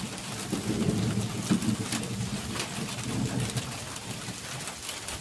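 Rain falling, an even hiss full of fine drop ticks, with a lower, uneven sound underneath from about half a second in to about three and a half seconds.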